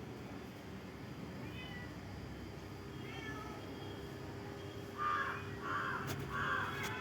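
Domestic cat crying with short, drawn-out meows at the sight of another cat. A couple of faint cries come first, then three louder, rougher cries in quick succession near the end.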